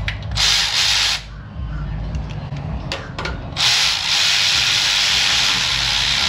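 Power ratchet with a 3-inch extension and 13 mm deep socket spinning a bolt in two runs: a short burst just after the start, then a longer steady run from about three and a half seconds in.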